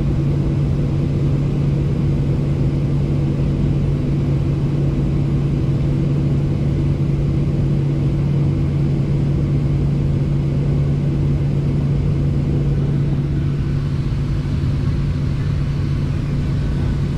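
Steady drone inside a jet airliner's cabin while it taxis slowly with its engines at idle, carrying a low hum that holds one pitch.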